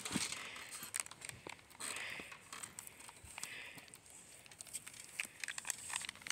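Faint rustling with scattered light clicks and knocks, no single steady source.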